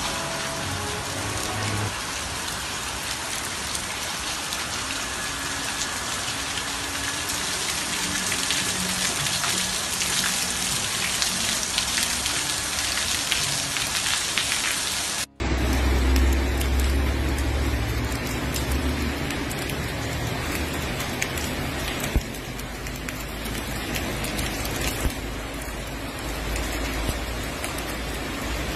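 Heavy tropical rain pouring down, a dense, steady hiss. About halfway through the sound breaks off for an instant and resumes from another recording of the downpour, with more low rumble in it.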